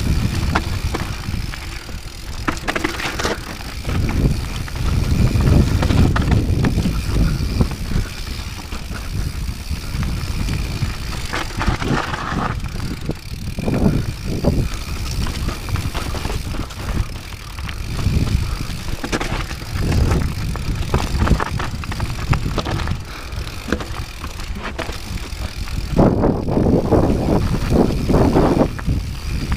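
Rocky Mountain 790 MSL mountain bike riding down a dry, stony dirt trail: tyres rolling over dirt and loose stones, with short knocks and rattles from the bike over bumps. Wind rumbles on the camera's microphone throughout.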